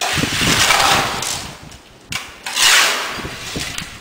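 Fresh concrete being scooped from a tray and tipped into the metal slump cone of a Vee-Bee consistometer: two gravelly scraping rushes of about a second each, with small knocks.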